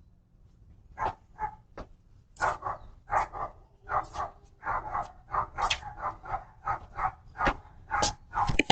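Dog barking repeatedly: a few separate barks, then a fast run of sharp barks, about two to three a second.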